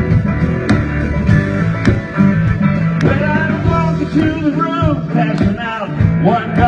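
Loud amplified country-rock music with a steady beat and guitar, and a man's voice singing into a handheld microphone from about three seconds in.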